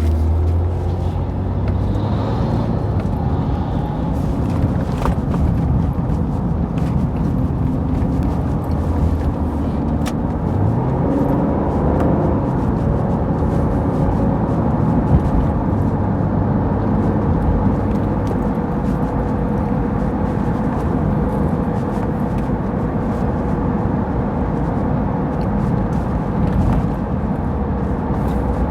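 Car engine and tyre road noise heard inside a moving car's cabin, a steady low drone; about ten seconds in, the engine note rises as the car picks up speed.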